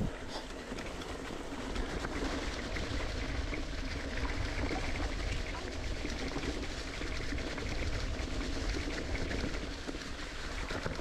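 Mountain bike riding a dirt singletrack: steady wind rushing over the microphone with tyre rumble and a constant clatter of small rattles from the bike.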